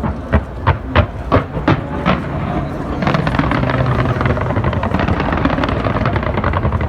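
Fireworks going off: a quick run of about seven sharp bangs in the first two seconds, then a dense, steady crackle of many shells bursting together.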